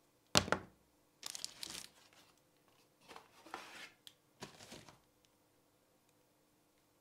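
Packaging being handled: a sharp knock about half a second in, then three spells of rustling and crinkling from a cardboard box and plastic wrap as a coiled power cord is pulled out of the box.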